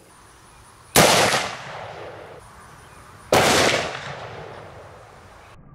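Two gunshot reports from a .454 Casull revolver with a 2.5-inch barrel, about two and a half seconds apart, each a sharp crack that rings off over a second or so.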